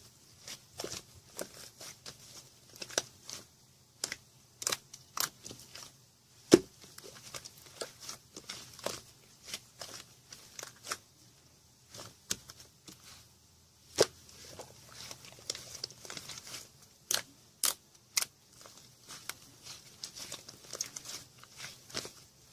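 Clear slime being squished and stretched by hand: irregular sticky clicks and small pops, with a sharper pop about six and a half seconds in.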